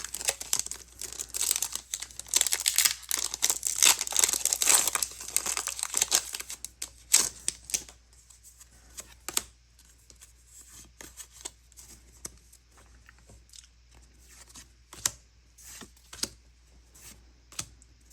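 Foil wrapper of a Pokémon trading card booster pack crinkling and tearing open for about seven seconds, then quieter scattered ticks and rustles of handling.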